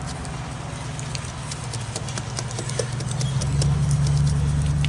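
Small electric vibrating tool running with a steady low hum against fresh cement patch, louder from about three and a half seconds in, with scattered sharp clicks and taps over it.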